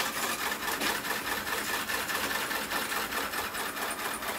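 A bicycle wheel spinning a small DC motor used as a generator, making a steady, rapid mechanical clatter and whirr as it lights the LEDs.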